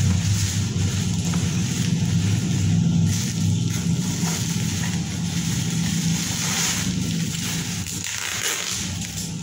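Bubble wrap and cardboard rustling and crinkling as a wrapped part is pulled out of its box, over a steady low rumble.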